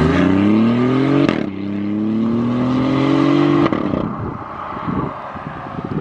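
BMW i8's turbocharged 1.5-litre three-cylinder accelerating hard through a Valvetronic valved exhaust, its note rising, dipping at an upshift about a second in, then rising again. Near four seconds it lets off and fades into a run of sputters and crackles as the car pulls away.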